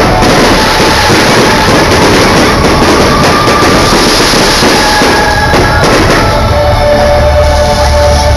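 Fireworks show, very loud: show music over park loudspeakers mixed with the bangs and crackle of fireworks. About six seconds in the crackle thins and held musical notes come to the fore.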